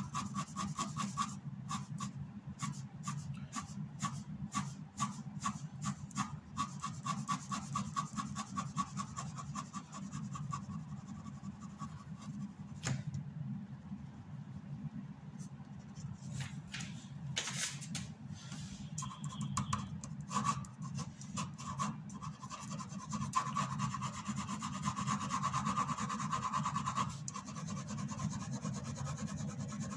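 Ink pen scratching across paper in many short, quick hatching strokes.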